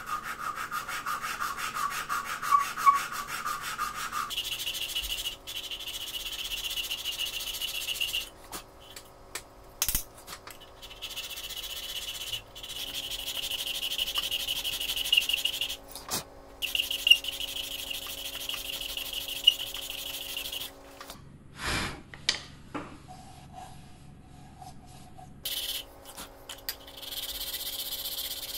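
Hand sanding inside the throat of a wooden strike block plane: abrasive paper on a stick rubbed back and forth against the wooden cheeks, in several runs with short breaks.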